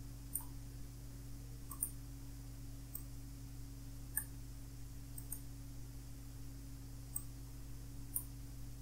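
Computer mouse button clicking faintly, single clicks about once a second with one quick double click, over a steady low electrical hum.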